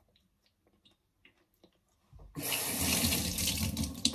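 Water running into a sink for about two seconds, starting about two seconds in and stopping abruptly, after a few faint clicks.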